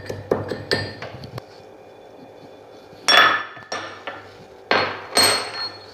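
Ginger being pounded with a pestle in a mortar: a quick run of ringing strikes in the first second and a half. Then two louder bursts of clattering, about 3 and 5 seconds in.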